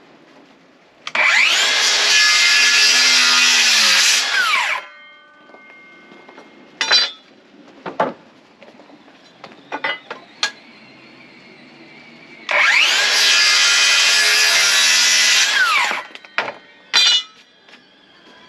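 Electric power saw making two cuts through pressure-treated 2x6 lumber, each cut lasting about three and a half seconds, the blade's pitch dropping as it winds down after each. A few short knocks come between the cuts.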